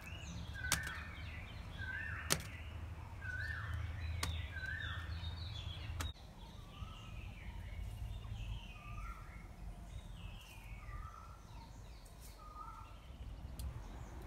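A bird calling repeatedly outdoors: a short note about every second, then a run of falling notes from about six seconds in. A few sharp clicks come in the first half.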